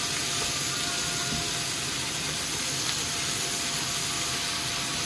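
Beef liver frying in a pan with sliced red onion, red chillies and curry leaves, giving a steady sizzling hiss.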